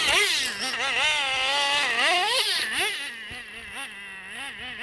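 Traxxas Slayer nitro RC truck's small two-stroke TRX 3.3 engine, its pitch swinging up and down in quick revs under the throttle. It grows fainter about three seconds in as the truck drives off.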